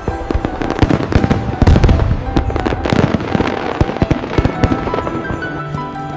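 Fireworks going off in a rapid, irregular string of bangs and crackles, thickest a couple of seconds in, over music that comes through more clearly near the end.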